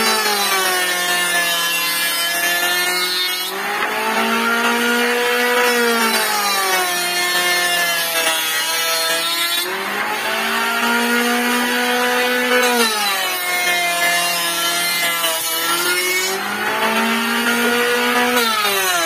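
Homemade wooden-bodied jointer planer running as a board is pushed over its cutter, with the rasp of the blades cutting wood. The motor's hum sags in pitch and recovers every six seconds or so as each pass loads it.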